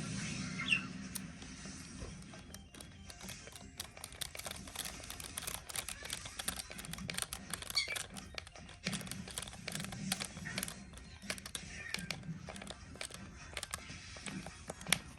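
Screws being tightened into an RC car's chassis with a small driver: a run of light, irregular clicks and ticks from the tool and the parts being handled. Faint music plays in the background.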